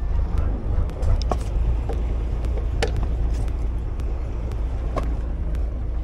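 Steady low rumble aboard a fishing boat at sea, from its engine and wind, with a few light clicks over it.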